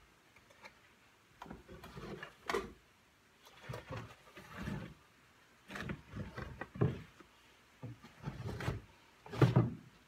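Finger-jointed OSB boards of a hive box being pulled apart and handled on a workbench: irregular wooden knocks and scraping, the loudest knock near the end.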